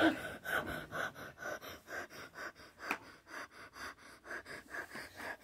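A person panting quickly and rhythmically, about four short breaths a second.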